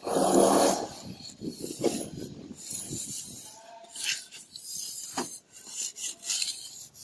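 Tool scraping and rubbing over wet mortar or plaster in irregular rasping strokes, the sound of plastering or screeding a wall. A short loud pitched sound comes in the first second.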